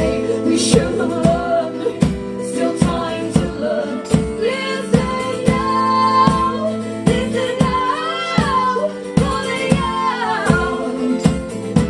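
Live folk-rock song: strummed acoustic guitar over a steady beat of about two strikes a second, with female voices singing long, gliding notes without clear words.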